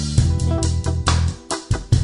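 Background music: a guitar track with bass guitar and drums.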